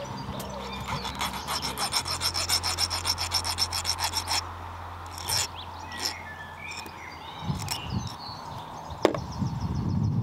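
Hand file rasping in quick even strokes across the end of a nickel silver model railway rail, for about three seconds. It is fettling the tip of a turnout switch blade so it sits snugly against the stock rail. The filing stops, and a few light clicks follow.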